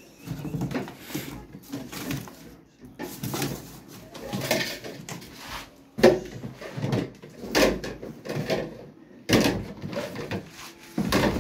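Plastic and metal pipe fittings being handled and knocked together: irregular clatter and knocks, the sharpest about six seconds in.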